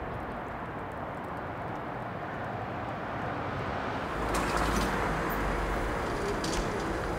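Steady outdoor traffic noise that grows louder, with a low rumble, about four seconds in.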